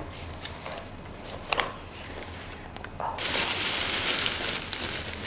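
Light clicks and taps from plastic stationery folders being handled. About three seconds in, a plastic bag is grabbed and crinkles loudly and continuously.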